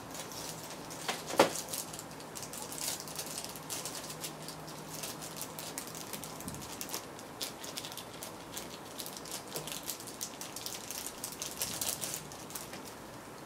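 Small plastic bag crinkling and rustling in the hands as thermal pads are picked out of it, with light irregular ticks throughout and one sharper click about a second and a half in.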